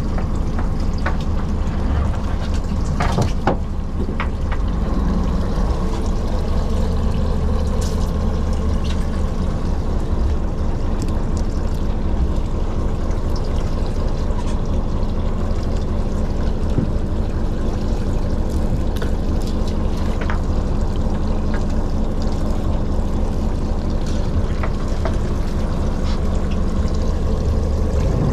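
A fishing boat's engine running with a steady low hum, with water splashing and a few knocks about three seconds in.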